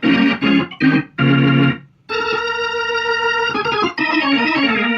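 Organ played loud through a Leslie 147 rotating speaker and its amplifier: short staccato chords, a brief break about two seconds in, then held chords that change twice. The Leslie is stuck on its fast tremolo speed and will not switch, which the owner puts down to a relay in the amplifier that needs replacing.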